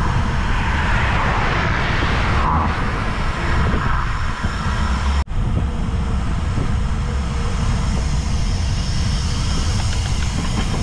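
Wind rushing over the microphone of a camera riding on a bicycle at speed, a loud, uneven low rumble with tyre and road noise. A hiss swells in the first few seconds, and the sound drops out for an instant about five seconds in.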